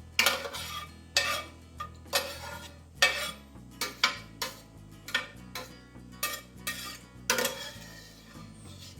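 Kitchen clatter of a metal utensil clinking and clanking against pots and glass canning jars: about a dozen irregular strikes, each with a short ring, over soft background music.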